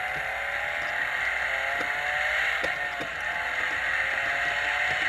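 Electronic race-car engine sound effect from a Hess 2011 toy race car, played from the toy's built-in speaker. It is a steady engine rev whose pitch wavers up and down.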